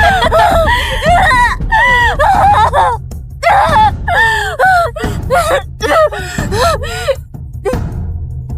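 A young woman crying out in pain: a string of high, wavering screams and gasps with short breaths between them, trailing off weaker near the end.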